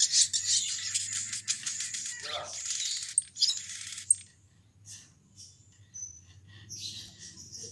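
Olive-backed sunbird (sogon) singing a fast, high-pitched trilling 'ngalas' song that fades away over the first three seconds, followed by scattered short, sharp high chirps with gaps between them.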